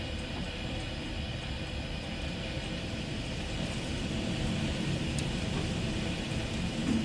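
Heavy rain falling steadily, with a low rumble beneath it.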